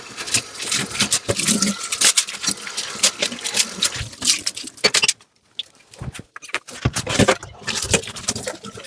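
Dishes and cutlery clinking and clattering as they are washed by hand, with running water under the clinks for the first half. The sound drops away briefly a little past the middle, then the clinks resume.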